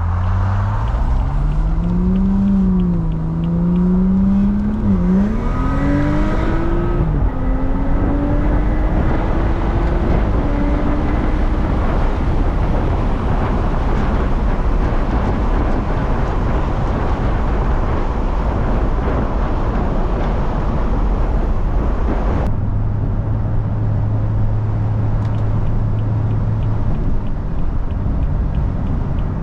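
BMW F30 335i's tuned, catless turbocharged inline-six accelerating, its note climbing with short dips at gear changes over the first dozen seconds, then a steady rush of engine, road and wind noise while cruising. About two-thirds of the way through, the sound abruptly turns duller, with a steady low hum.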